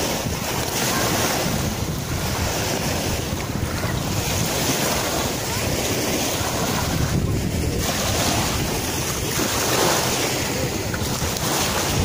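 Small waves washing onto a sandy shore of the shallow Sea of Azov, with wind buffeting the microphone.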